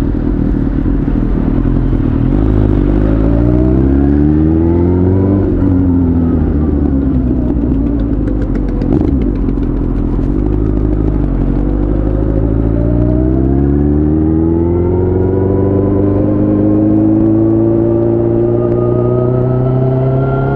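Suzuki GSX-R1000's inline-four engine running under way, heard from the rider's seat. The revs climb for a few seconds, drop sharply about five seconds in, then rise slowly and steadily through the second half.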